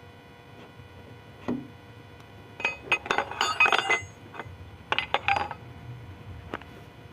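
Small hard objects clinking and clattering: one knock, then two quick clusters of clinks.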